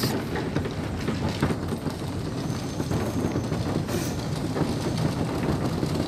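Monte Serrat funicular car running up its track, a steady rumble with a dense rattle of wheels and fittings.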